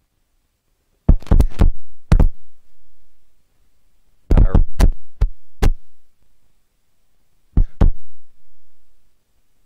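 Microphone being tapped and handled, giving loud thumps in quick clusters: three about a second in, one soon after, five more from about four to six seconds in, and two near the end. The sound system is being checked for a feedback problem.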